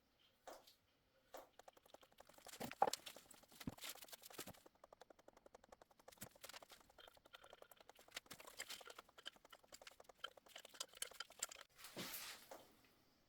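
Faint, rapid clicking and light knocking from hand work on threaded plumbing fittings, with a few louder knocks about three and four seconds in and again near the end.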